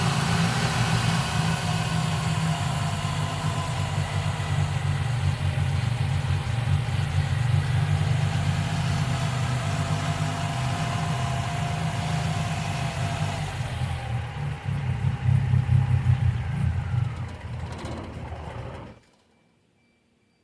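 1995 Geo Metro engine idling, with no lifter tick to be heard now that B-12 fuel injection cleaner is in the oil; the owner says it is running rough. It shuts off near the end and the sound cuts off suddenly.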